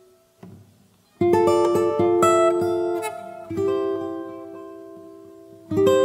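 Background music on acoustic guitar: after a near-silent second, strummed chords ring out and fade, a new chord about every two seconds.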